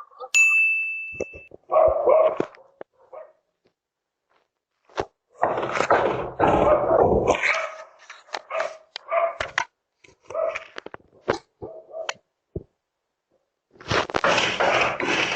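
A video doorbell's single steady beep marking the start of message recording, then a dog barking in loud, irregular bouts with short pauses between.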